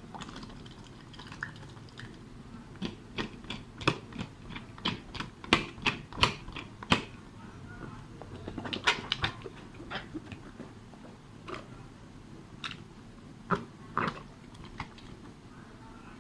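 Slime being squeezed and stretched by hand, giving irregular sharp clicks and pops as air pockets burst: two clusters, the busier one in the first half.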